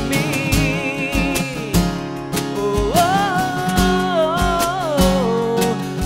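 Acoustic band playing: steel-string acoustic guitars strumming over a cajón beat of low thumps about twice a second, with a held, wavering melody line gliding between notes.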